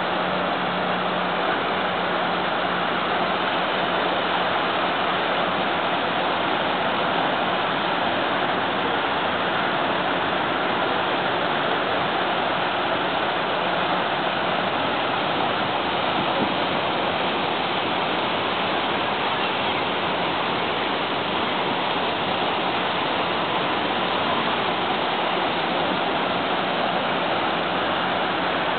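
Water from a large stepped fountain, spilling down its tiered sides and splashing from a central jet: a steady, even wash of falling water.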